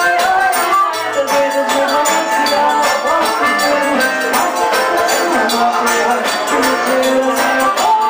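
Live forró band playing: an accordion melody over acoustic guitar, zabumba drum and hand percussion, keeping a steady dance beat.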